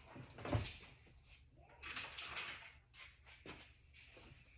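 Scattered knocks, clunks and rustling, with the loudest thump about half a second in and sharp clicks a little later.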